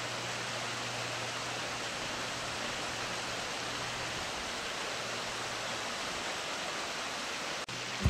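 Water of a shallow stream rushing over rocks and spilling over a small weir: a steady, even rush that drops out for a moment near the end.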